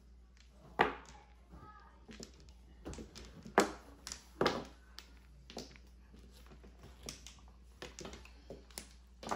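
Mahjong tiles clacking on a tabletop as they are drawn and discarded: a sharp click every second or so, the loudest about a second in and again near four seconds.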